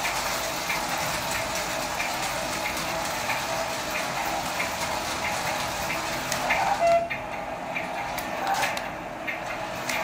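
Toy remote-control car running across a tiled floor: its small electric motor whirring steadily, with wheel noise on the tiles.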